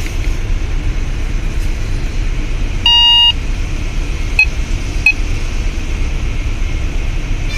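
Radio Shack 12-262 weather radio giving one short electronic beep about three seconds in, then two faint short chirps a second or two later, while it auto-searches for a station. A steady low rumble runs underneath.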